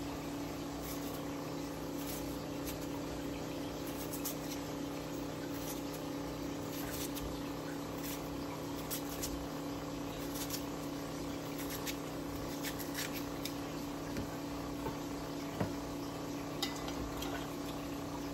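A steady motor hum with several fixed tones runs throughout, over a scattering of light clicks and taps as an onion is sliced by hand with a knife and the pieces drop into a glass baking dish.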